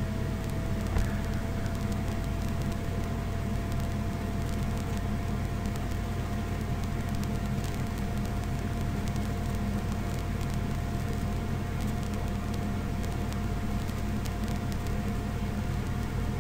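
Steady low electrical hum and hiss with a faint constant whine: the background noise of the recording setup, with no speech.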